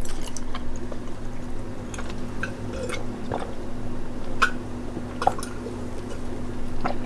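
A few small, wet mouth clicks and smacks, spaced about a second apart, over a steady low electrical hum.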